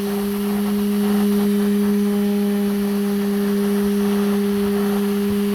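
Rewound 775 12 V DC motor running at a steady high speed: an even hum with a higher whine over a hiss.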